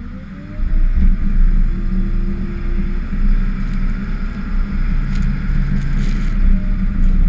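Ford F-550 plow truck's engine rising in pitch as it accelerates, then running steadily under load with a loud low rumble as the truck plows snow. A rushing hiss builds over the middle of it.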